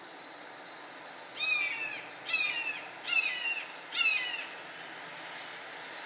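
Red-shouldered hawk calling four times in quick succession, about one call a second: a series of loud, down-slurred kee-ah screams. The calls sit over steady wind noise.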